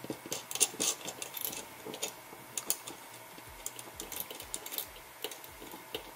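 Small metallic clicks and taps as a crimped ring terminal, washer and nut are fitted by hand onto the threaded terminal studs of a fuel gauge. The clicks come irregularly, busiest in the first second and a half and sparser after.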